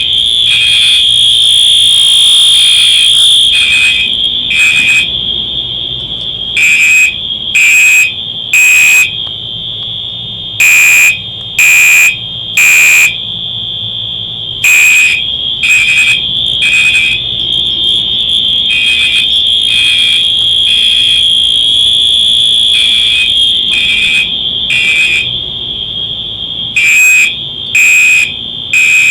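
Home fire alarm system sounding after its pull station is pulled. A steady high-pitched tone runs under a louder horn pulsing in the temporal-3 evacuation pattern: three blasts about a second apart, then a pause, repeating every four seconds.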